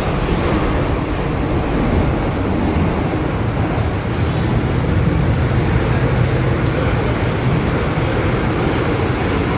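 A 1979 first-generation MTR M-Train (CM Stock) metro train running along the line: a steady rumble of wheels and traction equipment, with no brake squeal.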